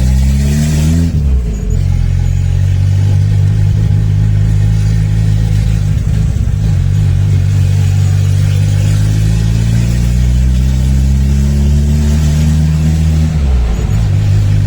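Turbocharged VW AP 1.9 four-cylinder engine of a Voyage accelerating through the gears. Its note rises, drops about a second in at a gear change, then climbs slowly for about eleven seconds before dropping again near the end.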